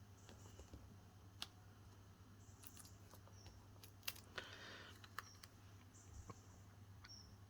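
Near silence over a faint steady low hum, broken by a few light taps and clicks and a brief soft rustle from craft materials being handled on a desk.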